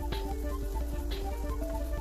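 Background music: a melody over a deep bass, with a sharp beat about once a second.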